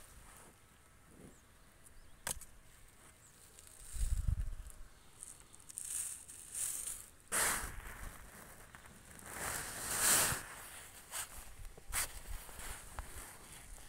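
Rustling in dry leaves, grass and stones, in several short bursts, with a few sharp clicks and a brief low rumble about four seconds in.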